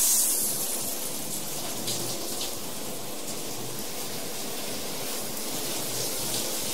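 Water running steadily into a bathtub, an even rushing hiss that is a little louder in the first half-second.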